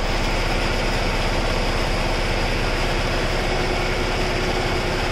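Water gushing steadily from a pipe into a concrete tank, splashing onto the water surface, with a steady motor-like hum beneath it.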